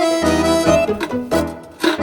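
Instrumental background music: a melody of changing notes over a bass line with a steady beat.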